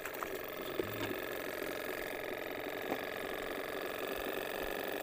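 Small battery-powered air pump on a bait jug buzzing steadily, with a fine rapid rattle in its hum.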